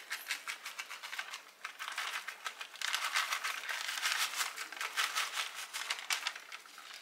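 A plastic bag of shredded cheese crinkling and rustling as cheese is sprinkled by hand, a dense run of quick irregular crinkles with a short lull about a second and a half in.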